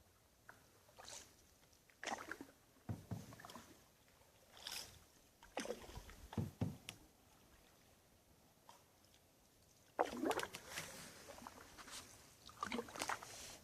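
Canoe paddle strokes: the paddle dipping and pulling through still water with soft irregular swishes and splashes every second or two. The busiest burst comes about ten seconds in.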